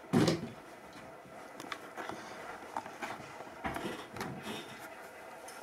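A sharp thump just after the start, then soft footsteps and scattered small knocks and clicks from a person and a German Shepherd puppy moving about on a carpeted floor.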